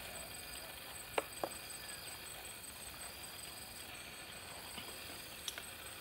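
Quiet outdoor background with a faint, steady, high pulsing trill, broken by light clicks: two close together about a second in and one near the end.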